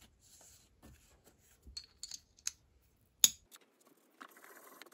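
Small clicks and taps of a metal coin and a steel lathe collet being handled by hand on a bench, with one sharp metallic click a little past three seconds. A steady noise starts near the end.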